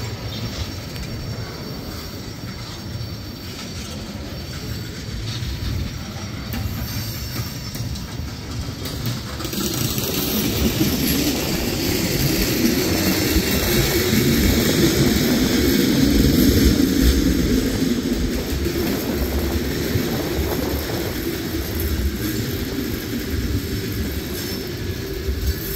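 Loaded tank cars and covered hoppers of a freight train rolling past: a steady rumble of steel wheels on rail that swells louder about halfway through and then eases.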